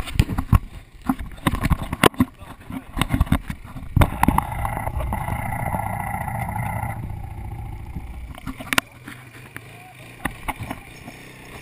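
Quad bike engine running, with sharp knocks and bumps on the bike-mounted camera through the first few seconds. About nine seconds in, the engine drops to a quieter steady running.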